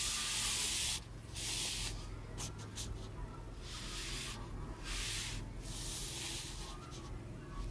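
Paper rustling and sliding as a loose printed sheet and the pages of a book are moved and smoothed by hand: about five short swishes, with a few light ticks about two and a half seconds in.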